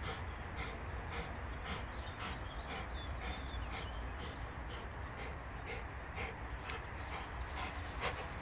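Rottweiler panting hard and rhythmically, about two and a half pants a second, while it recovers from an epileptic seizure.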